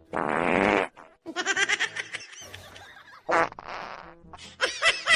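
Two loud fart sounds, one at the start and one about three and a half seconds in, with fainter pitched sounds between them.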